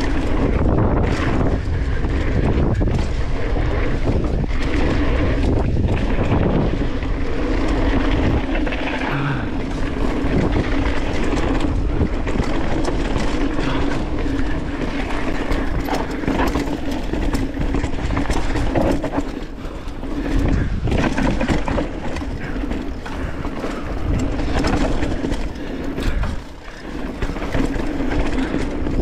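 Downhill mountain bike riding fast down a dirt trail: wind buffets the mounted microphone and the tyres roll steadily over the dirt. The bike's chain and parts give frequent short knocks and rattles over the bumps.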